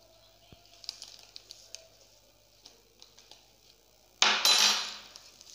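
Light clicks and rustles of hands handling things on a table, then about four seconds in a sudden loud rush of noise lasting about a second.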